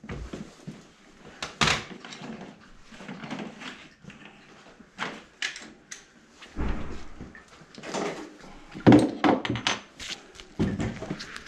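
Scattered knocks and clunks of hands working at a kitchen sink cabinet, handling tools and fittings, with rustling between; the sharpest knocks come about a second and a half in and near nine seconds.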